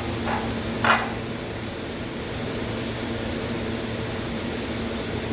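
Steady low electrical hum with two short knocks in the first second, the louder one about a second in.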